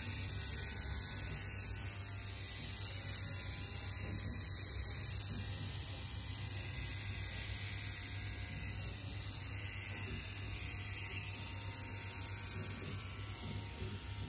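AVA EP8 wireless rotary tattoo pen running: a steady electric hum with a high hiss over it.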